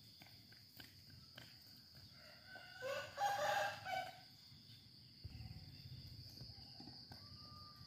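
A rooster crowing once, about three seconds in, the call lasting just over a second, over a steady high drone of insects.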